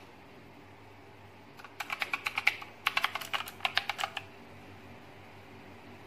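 Keys of a SIGNO KB-738 INFESTA mechanical gaming keyboard being typed on: two quick runs of sharp key clicks, each about a second long, starting about two seconds in with a short pause between them.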